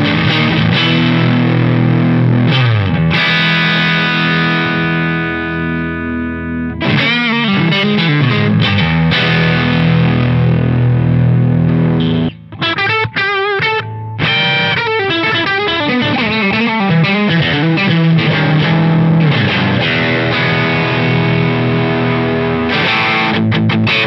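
Electric guitar with single-coil pickups (Crews ST23PL) played through a Fish Circuits Model One overdrive pedal into a Fender Deluxe Reverb amp and Suhr cabinet. Overdriven chords are left to ring and decay, then come strummed and picked phrases, with a few wavering vibrato notes about halfway and quick picking near the end.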